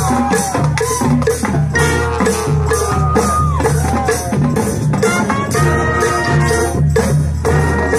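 High school marching band playing: brass with gliding, bending notes over a steady low bass line and a regular drum and percussion beat.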